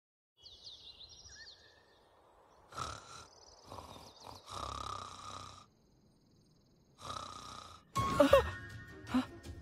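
Cartoon sound effects: high chirping in the first two seconds, then a sleeping boy snoring in a few drawn-out breaths. About eight seconds in comes a loud, sudden yell as he wakes with a start.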